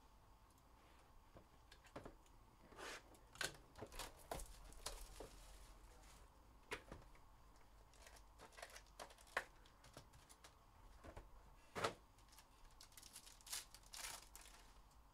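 Hands opening a Panini Limited football card hobby box and tearing open the foil pack wrapper inside: scattered crinkles, tears and light clicks of cardboard and foil, with a sharp snap about three-quarters of the way through.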